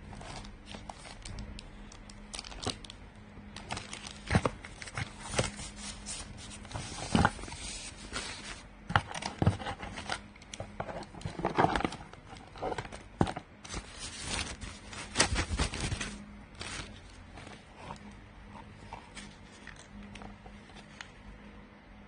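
Plastic wrapping crinkling and cardboard rustling as hands rummage through a set-top box's packaging, with irregular clicks and knocks from the cables and parts being handled. The handling thins out after about 16 seconds, leaving a faint steady hum.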